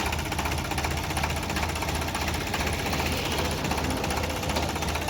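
Diesel engine of heavy machinery running steadily with a fast, even clatter.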